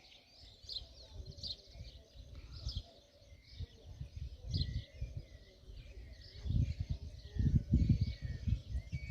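Many small birds chirping and calling at dusk in a rural town, over an irregular low rumble that grows much louder in the second half.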